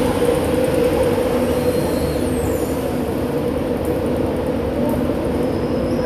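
LNER Mark 4 passenger coaches rolling past along the platform: a steady rumble of the wheels and running gear with a constant hum underneath.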